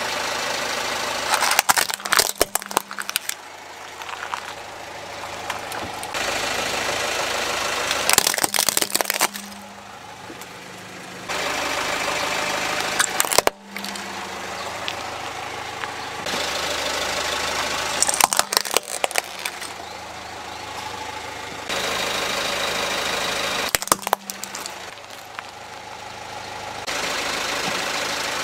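Car tyre rolling over toy vehicles and crushing them, with clusters of cracking and crunching several times, over the car's engine running at low speed.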